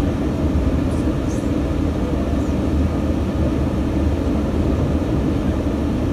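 Steady low rumble of a passenger train running at speed, heard from inside the carriage.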